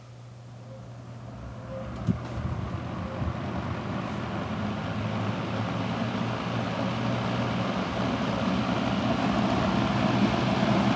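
Mid-1970s Lakewood-motored 14-inch box fan spinning up on its low speed: a steady motor hum under a rushing of air from the blades that grows steadily louder as the fan comes up to speed. A single short click about two seconds in.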